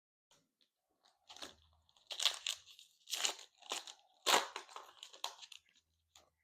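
A trading-card pack's foil wrapper being torn open and crinkled by hand, in about five separate rustling bursts.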